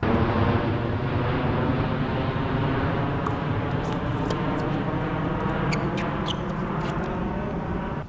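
A steady engine drone with many even overtones that starts and stops abruptly, with a few sharp knocks heard over it.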